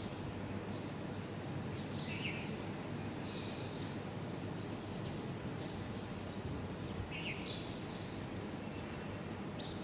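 Spatula stirring fish in thick masala in a karahi on a gas stove: a steady low hiss of cooking with a few short, high scraping sounds against the pan.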